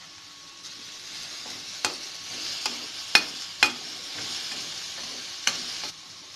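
Grated carrot and onion sizzling in oil in a kadai on low flame as a spatula stirs them, with four sharp knocks of the spatula against the pan. The sizzle starts just under a second in and stops near the end.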